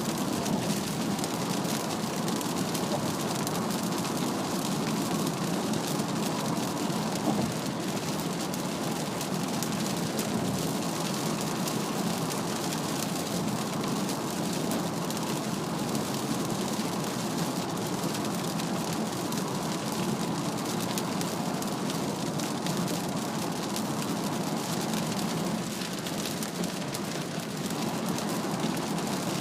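Steady hiss of heavy rain and wet-road tyre spray heard from inside a Mazda CX-3's cabin at expressway speed, with rain pattering on the car's body.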